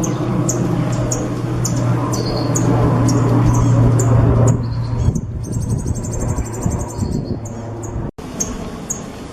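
Songbird singing: short high chirps repeating about three times a second, then a rapid high trill lasting a couple of seconds, over a steady low hum. The sound drops out for an instant near the end.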